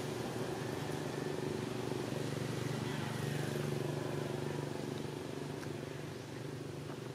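A steady low hum of an engine or motor running, holding even pitch throughout.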